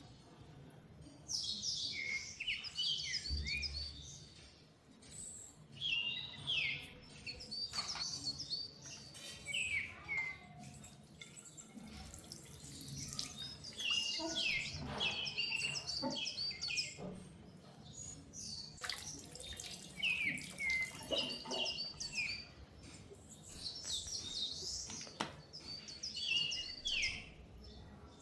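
Small birds chirping, in repeated runs of quick high twittering calls every second or two, with a few faint clicks among them.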